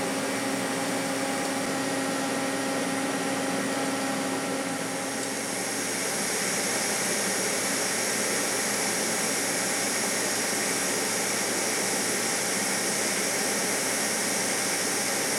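TIG welding arc, a steady hiss with a faint hum, joining a stainless steel V-band flange to a Borg Warner turbo housing. About five seconds in it turns brighter and hissier, then holds steady.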